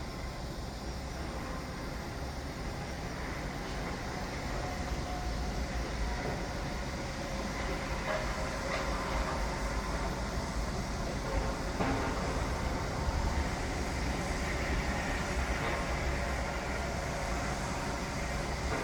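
Construction site noise: a steady low rumble that swells a little over time, with a couple of faint knocks about nine and twelve seconds in.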